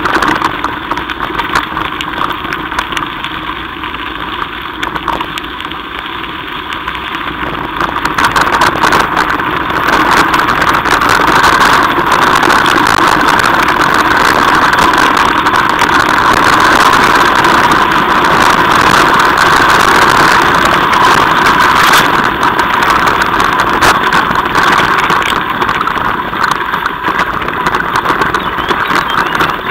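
Mountain bike rolling over a loose gravel track, picked up by a camera mounted on the bike: a steady noisy rattle of tyres crunching stones and the frame jolting. It grows louder about eight seconds in.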